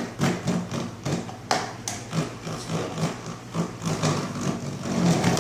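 Spinning plastic fan blades repeatedly slapping against a hand held at their edge: a rapid, irregular run of sharp knocks over the steady hum of the fan motor.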